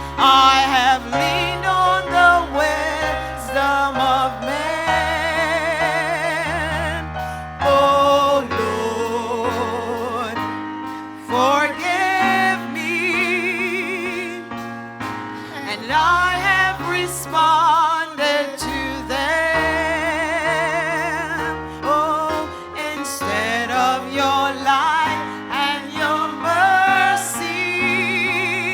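Gospel worship music: a singer holding long notes with wide vibrato and sliding runs, over sustained keyboard and bass accompaniment that changes chord every few seconds.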